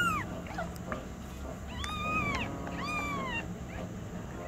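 Newborn kitten crying with loud, high-pitched meows, each rising then falling in pitch: the tail of one call at the start, two full calls about two and three seconds in, and another beginning at the end. The kitten is crying from hunger.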